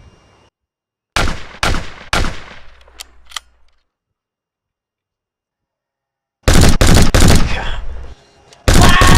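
Gunfire sound effects: three single gunshots about half a second apart and two faint clicks, then a few seconds of dead silence, then long bursts of rapid machine-gun fire near the end.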